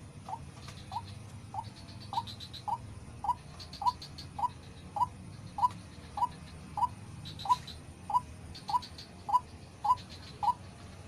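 White-breasted waterhen calling: a steady series of short, upswept notes, about two a second, that stop near the end.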